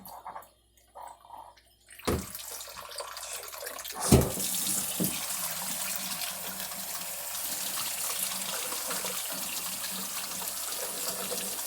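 Steady rush of running water that starts about four seconds in, after two thumps.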